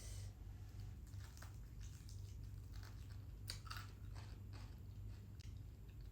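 Close-up crunching and chewing of crispy fried chicken, with irregular bites and crackles of the coating.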